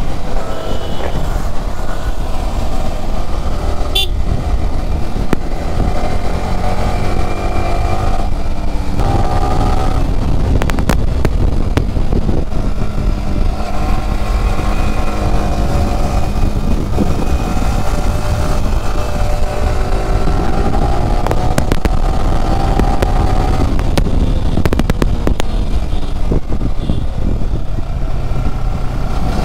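Yamaha sport motorcycle's engine pulling along the road, its pitch rising and falling several times as the rider accelerates and eases off through corners. Heavy wind rumble on the action-camera microphone runs underneath.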